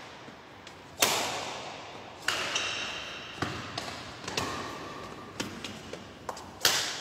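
Badminton rally: racket strings striking the shuttlecock about once a second, each sharp hit echoing in a large hall, with a short high squeak between hits.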